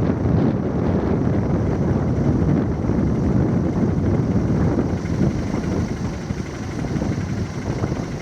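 Strong wind buffeting the microphone: a steady, loud low rumble that eases slightly in the second half.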